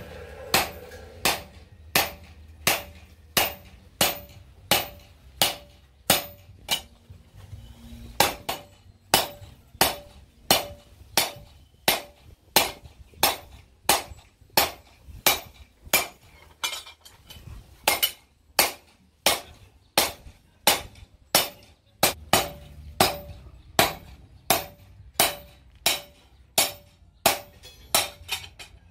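Hand hammer striking a steel blade on a stake anvil in a steady rhythm, about three blows every two seconds, each a sharp metallic ring.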